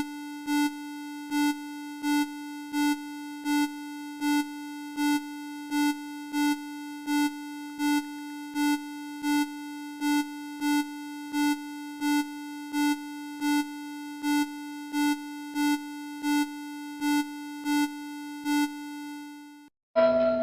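Electronic alert tone: a steady, low, buzzy tone with a louder beat about every three-quarters of a second. It cuts off suddenly near the end.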